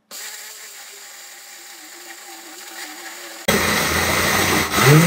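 Countertop glass-jar blender grinding dry dog kibble into powder: a steady motor whir for about three and a half seconds, then it suddenly turns much louder and harsher as it grinds the kibble.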